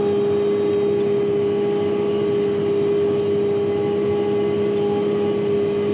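Tractor engine running at a steady speed, heard from inside the cab as an unchanging hum.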